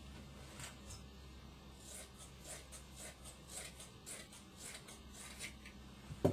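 Scissors snipping through shirt fabric, a run of short crisp cuts at about three a second, then a single sharp thump just before the end.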